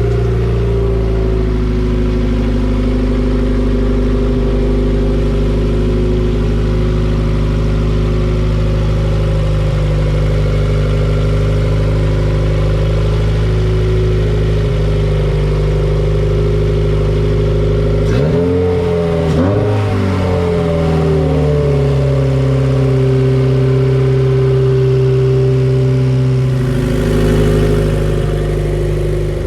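Car engine running on its first start-up with a newly installed turbo kit, idling steadily and then revved a few times about two-thirds of the way through, its pitch rising and falling before settling again.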